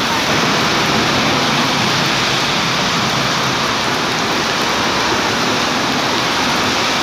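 Downpour of rain on wet paving stones and a street: a loud, steady, dense hiss of splashing drops.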